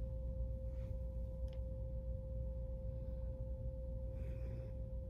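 A steady, unchanging pure tone over a low hum, with a few soft rustles.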